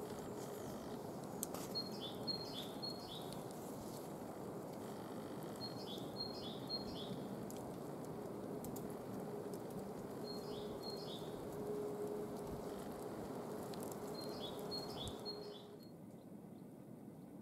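A songbird singing a short phrase of a few high notes, about four times at intervals of roughly four seconds, over a steady rushing background. Near the end the background drops lower and the song stops.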